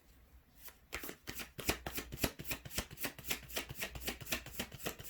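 A deck of tarot cards being shuffled by hand: a quick, even run of card flicks that starts about a second in.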